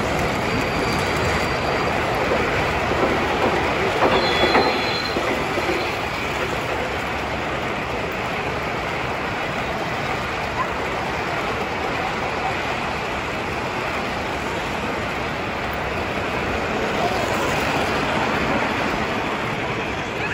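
O-scale model train rolling past close by, its wheels giving a steady rumble and clatter on the track as a line of freight cars goes by. There are brief high squeals about one and four seconds in.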